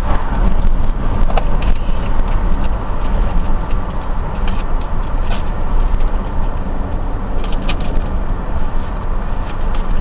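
Steady low road and engine rumble inside a moving car's cabin, with a few light clicks now and then.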